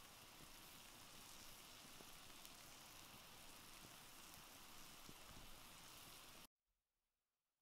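Faint, steady sizzling of bacon-wrapped pork medallions frying on a hot stone, with a few light crackles; it cuts off suddenly about six and a half seconds in.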